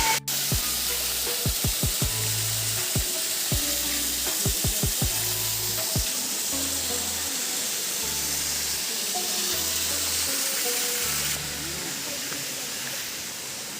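Steady, even rush of a waterfall, with low bass notes and short thumps of background music underneath.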